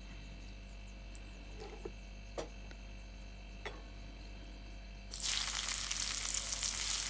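Hot oil in a steel wok, quiet apart from a steady low hum and a few faint ticks. About five seconds in, sliced vegetables (cabbage, carrot, onion, chilli) hit the oil and it starts sizzling loudly and steadily.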